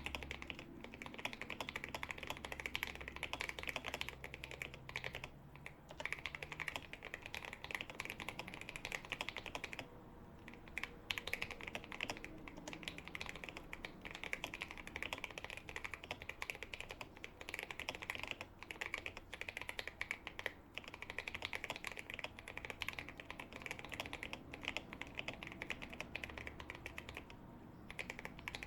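Fast continuous typing on a custom GMMK 2 mechanical keyboard with lubed Akko V3 Cream Blue tactile switches, dampened by PE foam, case foam and tape mod, giving a muted, creamy clack. The typing stops briefly a few times: around five seconds in, around ten seconds in, and near the end.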